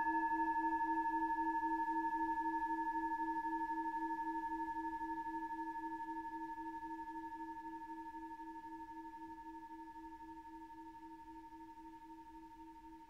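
Singing bowl ringing out and slowly fading away, its low tone pulsing with a steady wobble while the highest overtones die away within the first couple of seconds.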